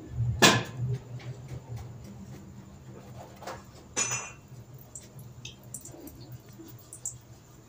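Hand tools and a steel snap ring clinking against the gearbox's metal housing: a sharp click about half a second in, the loudest, a few lighter taps, and a ringing metallic clink about four seconds in.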